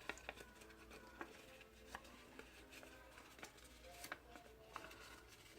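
Near silence, with faint scattered ticks and rustles of paper being folded and creased by hand.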